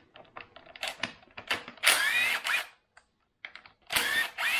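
Cordless drill-driver spinning up in two short bursts, each with a rising whine, as it backs out the 12 mm brake caliper mounting bolts. A run of light clicks comes before the first burst.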